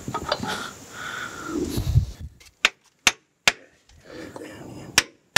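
Small hammer tapping a block of wood laid on a locomotive steam chest, to seat the chest down on its gasket. After some handling noise and a dull thump, five sharp taps come: three close together, then two more after a short pause.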